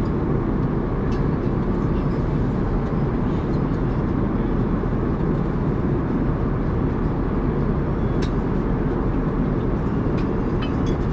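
Steady cabin noise of an Airbus A380 airliner: an even, low rushing drone of airflow and engines, with a few faint clicks.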